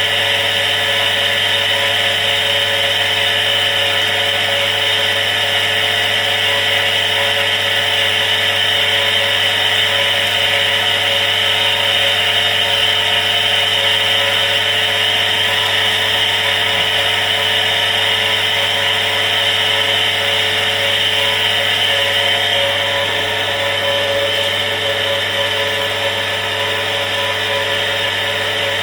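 Electric household water pump running steadily, a noisy, unbroken motor hum that eases slightly in the last few seconds.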